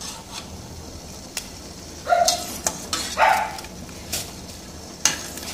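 A metal slotted spoon clinking a few times against a stainless steel pot as blanched broccoli is scooped out of the water. Around the middle, two short barks from a dog.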